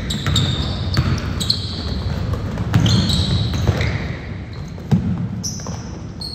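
Basketball game on a gym court: the ball thumping on the hardwood at irregular intervals and sneakers giving short high squeaks on the floor.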